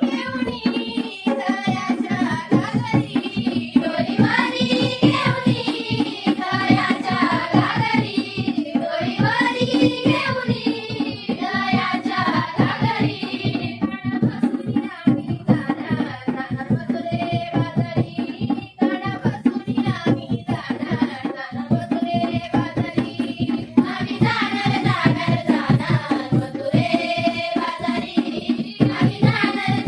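Konkan folk song sung by a lead voice, with a hand drum keeping a fast, steady rhythm under the melody throughout.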